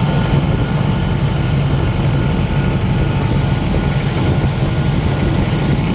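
Tourist boat's engine running steadily under way, noisy and unchanging.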